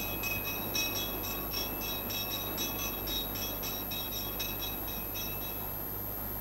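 A rapid string of short, high tinkling clinks, about four a second, each ringing at the same few pitches, like small bells jingling. They stop near the end, over a steady hiss.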